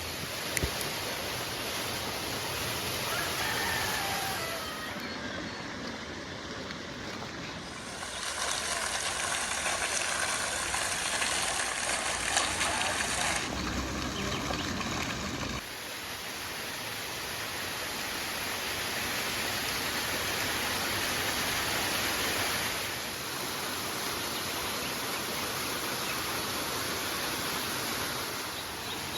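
Steady rush of a river or stream. The sound changes abruptly several times, becoming brighter and louder for a few seconds in the middle.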